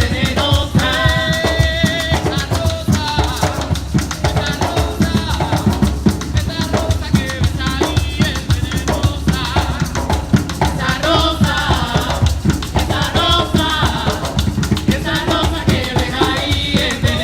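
Background music with a driving drum beat and rattling, shaker-like percussion under a melody.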